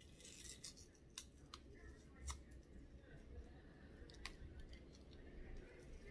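Faint handling of a small packet of mints: a short rustle, then a few separate sharp clicks spread over several seconds.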